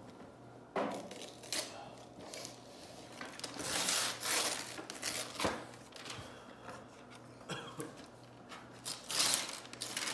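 Wrapping paper rustling and tearing as a gift is unwrapped, with cardboard gift boxes being handled, in irregular bursts and one sharp knock about five and a half seconds in.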